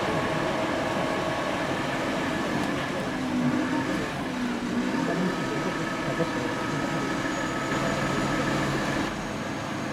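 A steady mechanical drone with several held steady tones, like a running engine or machine, with faint voices behind it; it eases a little near the end.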